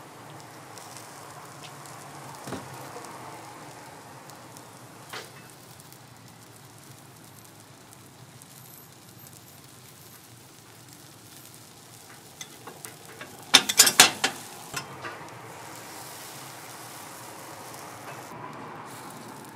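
Batter sizzling steadily in hot fish-shaped bungeoppang molds, with a couple of single light knocks and, about two-thirds of the way through, a short burst of sharp metal clatter.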